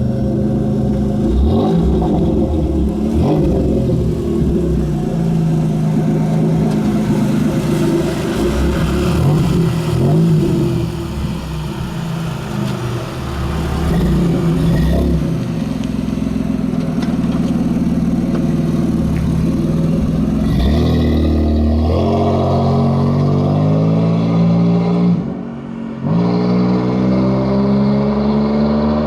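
1993 Dodge Stealth's 3.0 V6 revving under load as the car struggles to accelerate, its pitch wavering up and down for most of the time, then climbing steadily twice with a short drop in level between the climbs, about three-quarters through. The transmission is slipping and getting stuck in gear.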